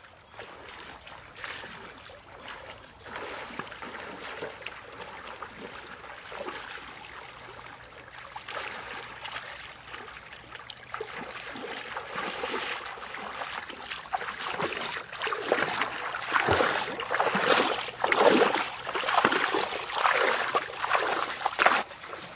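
Legs wading through a shallow stream, with repeated splashing and swishing of water. The splashing grows louder over the last several seconds.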